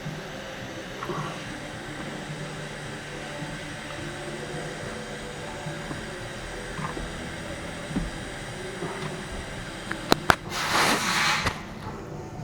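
Small clicks and handling noises as a plastic ignition switch is worked loose under a dashboard, over a steady background hum. Near the end come two sharp clicks, then a loud rustling scrape lasting about a second.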